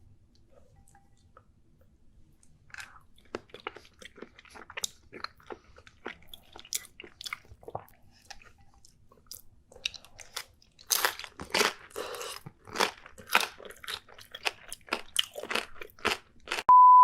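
Close-miked crunching and chewing of food, with many quick bites that start faint and get louder about two-thirds of the way in. A steady high beep starts right at the end.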